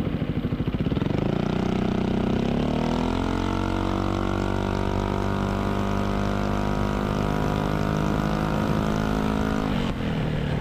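Yamaha XMAX 250 scooter's single-cylinder engine through a Villan MV1 aftermarket exhaust, rising in revs for about two seconds under acceleration, then holding a steady drone at cruising speed. The revs drop suddenly near the end as the throttle closes.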